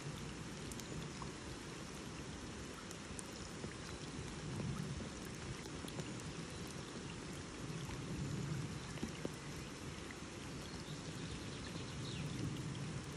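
Steady rain falling on a lake's surface, an even patter with scattered sharper drop ticks.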